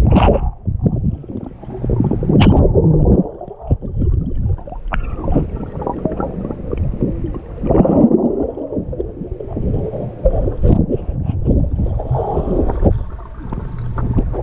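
Swimming-pool water splashing and churning close to the microphone, a loud, uneven, muffled rumble with a few sharper splashes.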